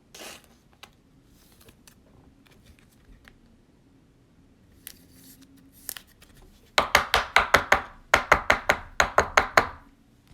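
A quick series of sharp clicking taps, in two runs of about a second each, starting about two-thirds of the way in.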